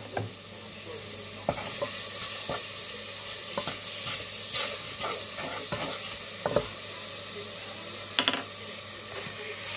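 Chicken pieces sizzling in a frying pan, the hiss growing stronger about two seconds in, with scattered clicks and knocks on top.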